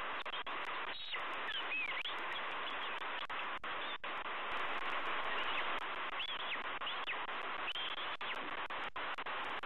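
Short, thin, high bird chirps, a few at a time, over a steady hiss: a cluster about a second in and more in the second half.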